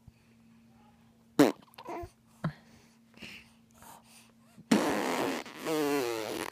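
A long, loud spluttering fart noise blown as a raspberry with the lips, wavering in pitch and dropping toward its end. A sharp short sound comes a little over a second in, followed by a few faint short sounds.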